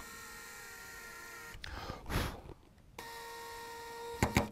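Power drill with a driver bit driving a wood screw through a steel hinge into wood. The motor whines steadily in two runs with a short pause between, and there are a few sharp clicks near the end.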